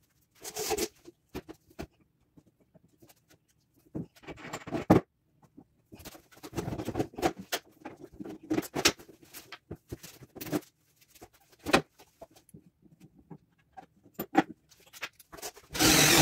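Knocks, bumps and scraping as a heavy over-the-range microwave is handled and lifted onto its wall bracket. Near the end a cordless impact driver runs for about a second, driving a mounting screw down through the hood into the microwave's top.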